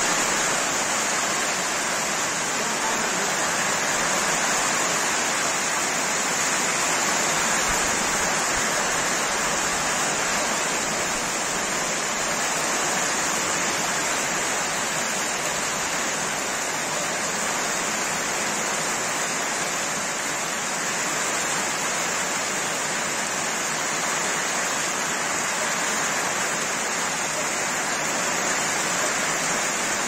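Heavy rain pouring down steadily onto grass and pond water, a constant even hiss with no let-up.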